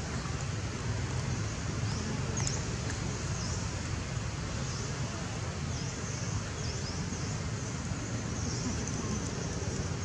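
Outdoor ambience: a steady low rumble with short high bird chirps repeating throughout, and a faint click about two and a half seconds in.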